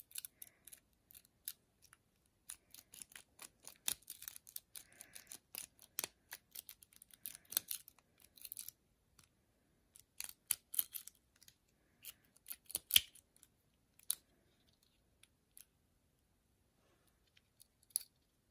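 Steel lock pick clicking and scraping against the pins inside a four-pin Master 141D padlock, held under tension by a bottom-of-the-keyway wrench. Irregular sharp metallic ticks, thickest in the first half and sparser later.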